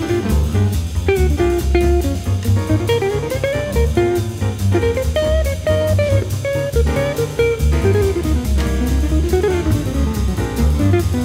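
Background music with a melody over a steady beat.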